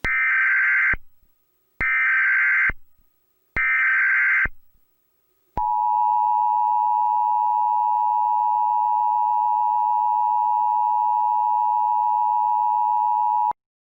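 Emergency Alert System header: three bursts of SAME data tones, about a second each, followed by the EAS attention signal, a steady two-note tone held for about eight seconds that cuts off suddenly.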